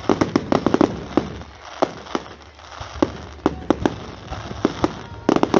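Fireworks exploding in a rapid run of sharp crackling cracks. A dense flurry comes in the first second, scattered single bangs follow, and another flurry comes near the end.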